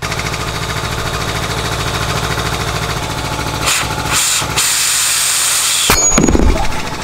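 Compressed air blown into a brake caliper to force its piston out, a loud hiss in two bursts about four seconds in that cuts off sharply, followed by a low thud. Under it a shop air compressor runs with a rapid, steady pulse.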